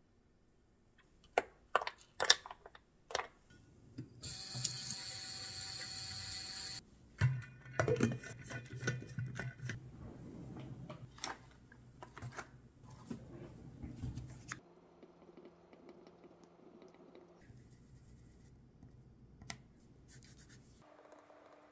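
Kitchen handling sounds: several sharp clicks and taps, then a steady hiss for about three seconds that cuts off suddenly, followed by clattering and rustling. Near the end comes faint scratching of a crayon on a paper card.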